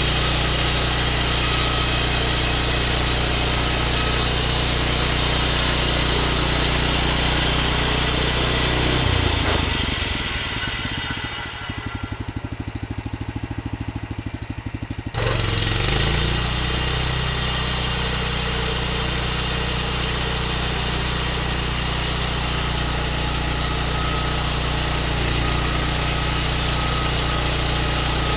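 Sawmill engine running steadily at speed. About ten seconds in it winds down to a slow, low pulsing idle for a few seconds, then is abruptly back at full running speed.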